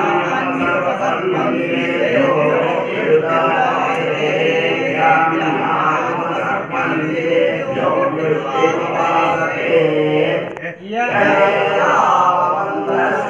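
A group of priests chanting Vedic mantras in unison. The chant breaks off briefly about eleven seconds in and then resumes.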